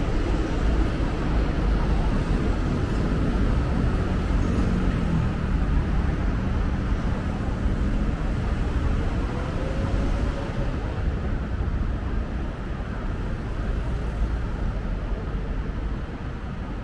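Steady rumble of city road traffic, with a faint rising engine tone a little past halfway.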